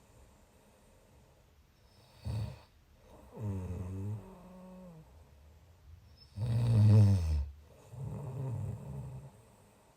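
Snoring in uneven breaths: a short snore about two seconds in, a longer wavering one a second later, the loudest snore about six and a half seconds in, and a softer one after it.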